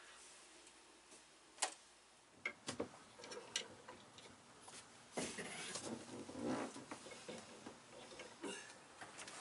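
Scattered clicks and knocks of hardware being handled while a wind vane self-steering gear is mounted on a sailboat's stern, one sharp click about a second and a half in and a busier run of knocks in the middle.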